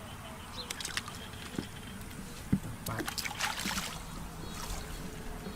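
Shallow water splashing and sloshing in a few short bursts.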